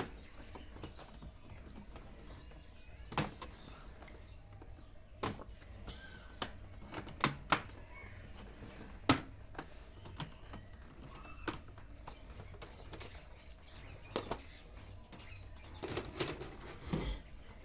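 Irregular sharp clicks and knocks of an HP 250 G3 laptop's plastic parts being handled and pried off during disassembly, about a dozen scattered taps with quiet between them.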